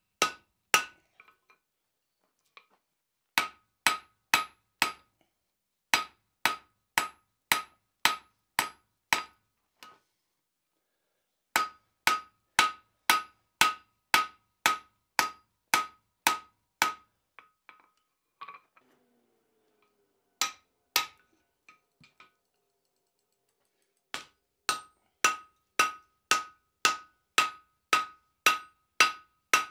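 Blacksmith's hammer striking hot steel in runs of steady blows, a little over two a second, each with a short metallic ring, with pauses between the runs.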